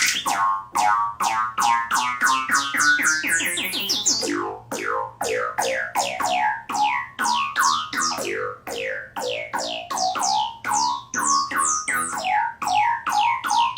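Synthesized oscilloscope music, the audio signal that draws images on an oscilloscope screen: a rhythmic run of about three notes a second, each sweeping down in pitch, over slowly rising gliding tones.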